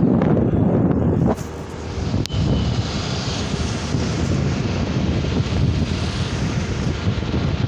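Steady engine and road noise of a vehicle travelling along a highway, with wind rumbling on the microphone until about a second in, when the sound changes abruptly. A single sharp click just after two seconds.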